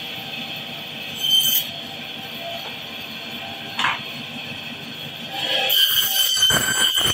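Meat band saw running with a steady hum, its blade screeching as it cuts through a piece of big boal fish, briefly about a second in and again for about a second and a half near the end. A single short knock comes midway.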